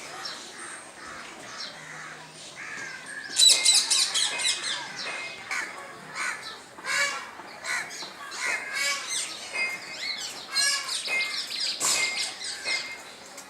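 Birds calling: many short, repeated calls, loudest a few seconds in.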